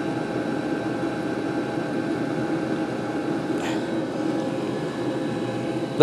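Diesel heater running steadily, a rushing hum with several faint steady tones from its blower and burner. It is running on the output of its thermoelectric generator modules alone, with the battery disconnected.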